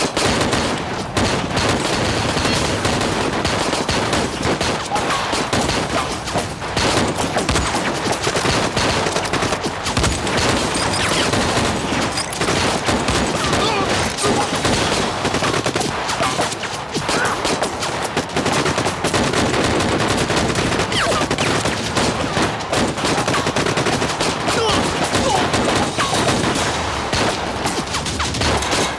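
Sustained battle gunfire: many rifles and machine guns firing at once, the shots overlapping without a break.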